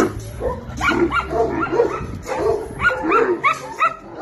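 Repeated short animal calls, about three or four a second, after a loud noisy burst at the start.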